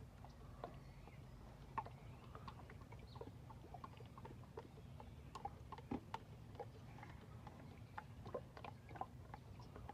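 Motor oil glugging from a 5-quart jug into a truck engine's oil filler: faint, irregular gurgles and small clicks as the jug drains.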